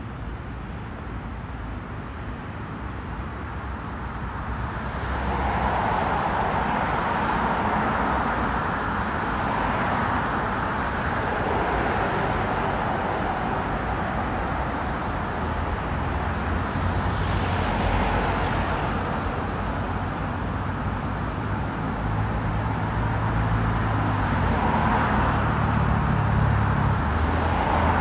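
City road traffic: a steady hum of cars and engines that grows louder about five seconds in, with vehicles swelling past several times.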